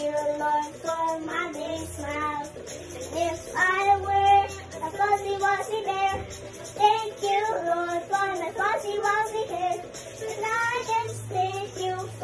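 A young girl singing a song along with a recorded music track with low bass notes underneath.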